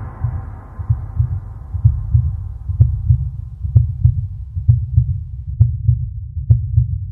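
Heartbeat sound effect: steady low double thumps, about one beat a second. A ringing tail fades out over the first few seconds, and faint ticks join from about three seconds in.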